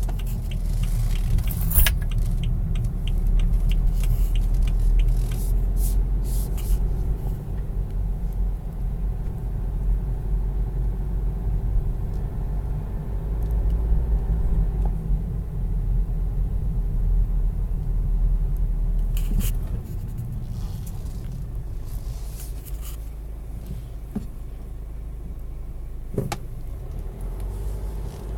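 Car driving along, heard from inside the cabin: a steady low rumble of engine and road noise, with a few light clicks and rattles. The rumble eases about two-thirds of the way through.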